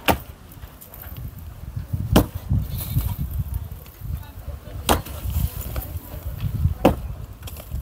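Sledgehammer blows striking a cement-block wall being knocked down, four sharp hits about two to three seconds apart.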